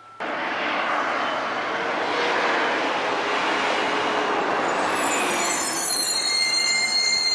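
A heavy truck, a tow truck or garbage truck, running loudly close by with a steady noise that starts suddenly. High thin squealing tones join in near the end.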